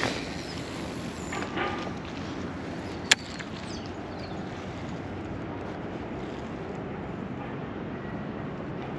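Steady outdoor background noise with a short rustle at the start and a single sharp click about three seconds in.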